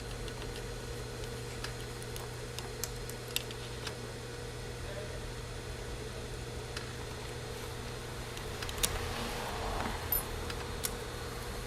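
Steady electric hum, with a few faint metal clicks of small parts and tools being handled on an industrial sewing machine while the feed dogs are removed.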